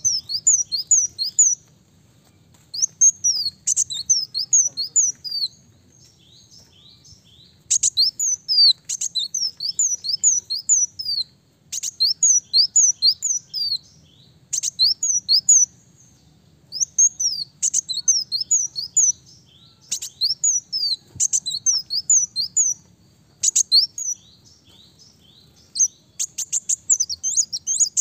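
Ruby-cheeked sunbird singing: repeated phrases of high, thin, down-slurred notes, about four or five a second. Each phrase lasts one to three seconds, with short pauses between them.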